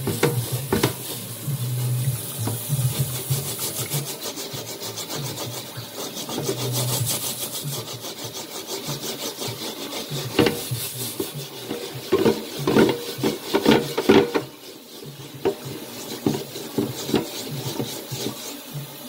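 A cooking pan being scrubbed with a scrubber under a running kitchen tap: quick, repeated rasping strokes over the sound of running water, easing off for a moment about three-quarters of the way through.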